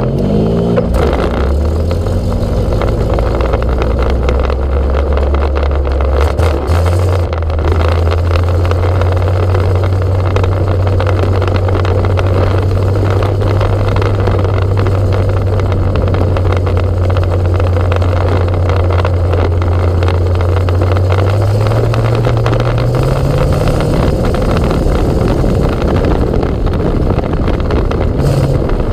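Race car engine heard up close from on board, rising in pitch as the car pulls away and then running at a steady pace on the dirt track. About three-quarters of the way through it revs up again as the car accelerates.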